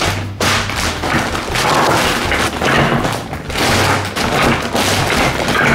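A plastic shopping bag rustling and crinkling loudly as it is handled and packs of dog food are put into it, with dull thumps in between.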